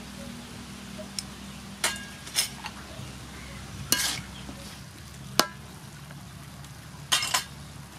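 A metal spatula scraping and knocking against a metal wok as beef is stir-fried with salt and sugar, about five sharp strokes spread through, over a steady low sizzle of the meat frying.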